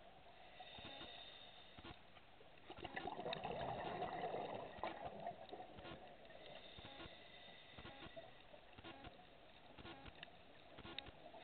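Muffled underwater sound recorded through a camera housing: a scuba diver's regulator breathing, with a rush of exhaled bubbles about three seconds in, over faint scattered clicks.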